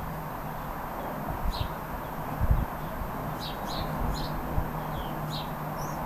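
Strong wind rumbling on the microphone, with a few dull gusty thumps. Over it a bird sings a string of short high chirps from about a second and a half in.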